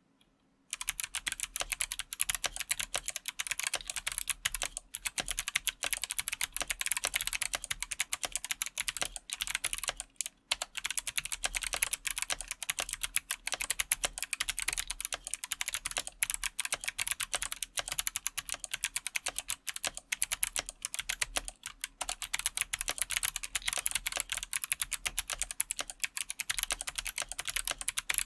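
Fast, continuous typing on a TKC1800 mechanical keyboard with Kailh Box Pink clicky switches on a carbon fibre plate: a dense stream of sharp keystroke clicks. It starts just under a second in, with brief pauses about a third and two thirds of the way through.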